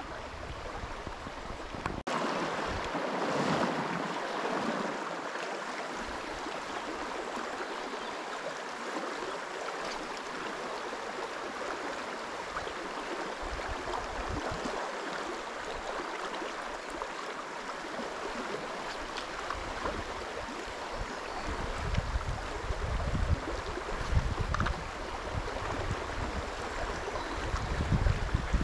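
Steady rushing of a river's current flowing over stones. In the last third, low rumbling bumps, typical of wind buffeting the microphone, come and go.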